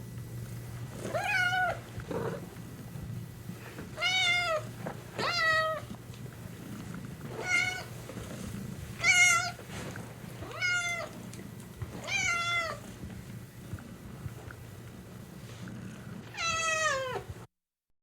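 Domestic cat meowing repeatedly, about eight separate meows a second or two apart, over a steady low purr. The last meow, near the end, is long and falls in pitch, and then the sound cuts off.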